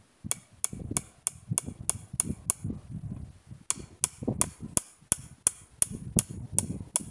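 A steel hammer driving a nail into a log crossbar: sharp, ringing metal-on-metal strikes at about three a second, with a short pause a little before the middle.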